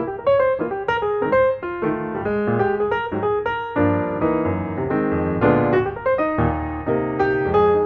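Background piano music: a run of quick melodic notes, then fuller sustained chords from about four seconds in.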